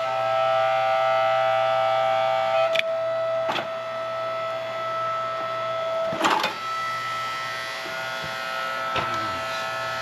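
Hydraulic log splitter's motor and pump running with a steady whine while the ram works a log, with several sharp cracks, loudest about six seconds in, as the wood gives. The whine changes pitch at that point.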